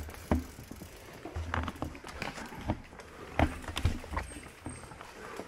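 Mountain bike rolling over a rough dirt singletrack: irregular knocks, rattles and dull thumps as the bike and camera jolt over bumps in the trail.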